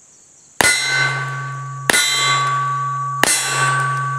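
Three shots from a Webley Mk VI revolver about 1.3 s apart, the first about half a second in. Each shot is followed by a long ringing clang, as of a steel target being hit, that fades slowly until the next shot.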